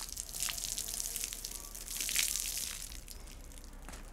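Water poured from a large container onto a small bamboo calculator held in a clamp stand, splashing and spattering off it. The pour is heaviest about two seconds in and eases off about a second later.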